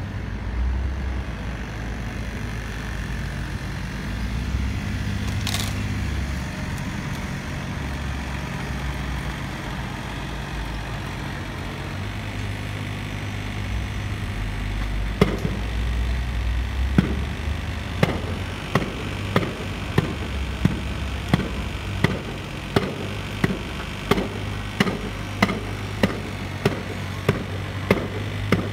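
Diesel engines of Kubota mini excavators and a wheel loader running with a steady low drone. From about halfway through, sharp knocks start, and in the last third they settle into a regular knocking, about three strikes every two seconds.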